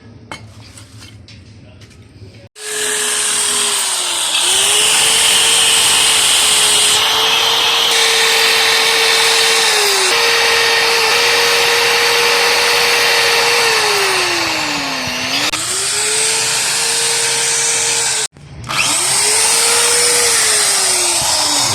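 Hand-held electric power tool running at full speed, its high tone sagging in pitch as it is pressed into the work, most deeply about three-quarters of the way through, then recovering. It starts suddenly after a few quieter seconds, stops abruptly just after 18 seconds, and starts again almost at once.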